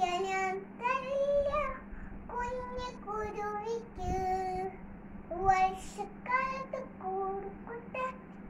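A little girl singing a song alone, without accompaniment, in short phrases of held notes with brief pauses between them, over a steady low hum.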